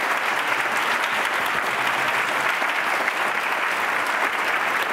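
Auditorium audience applauding steadily, a dense even clapping that holds at one level.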